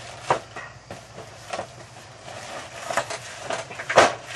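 Handling noise from a plastic model car kit being unpacked: scattered clicks and knocks with a faint rustle, the loudest knock near the end.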